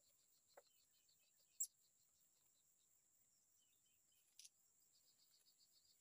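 Faint steady chorus of insects, a high hiss with fast pulsing, with two short high chirps about one and a half seconds and four and a half seconds in.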